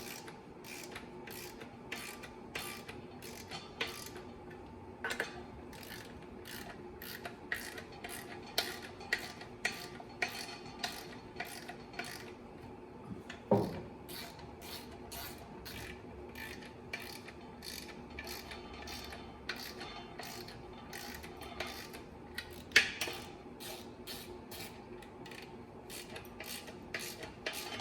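Hand ratchet clicking in short back-and-forth strokes, about three to four clicks a second, as the clutch bolts are drawn down a little at a time. Two louder knocks of the tool come about halfway through and near the end.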